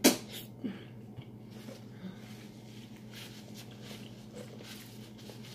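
A sharp, wet lip smack right at the start as sauce is sucked off the fingers, followed by faint crackling of a paper napkin as sauce-covered hands are wiped.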